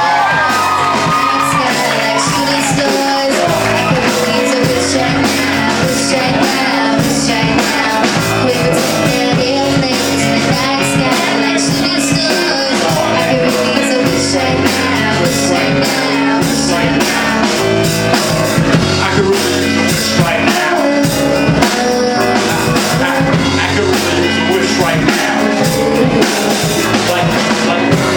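Song playing with drums and guitar, and some singing near the start.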